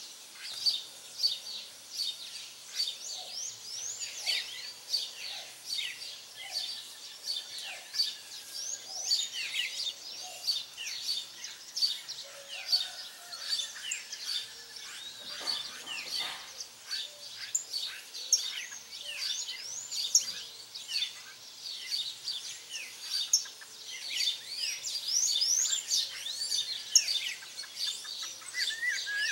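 Dawn chorus: many birds chirping and whistling at once, with quick, high, rising chirps overlapping continuously and a short trill about seven seconds in.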